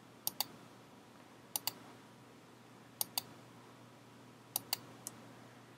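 Computer mouse button clicking: four pairs of sharp clicks, one about every one and a half seconds, over a faint steady hum.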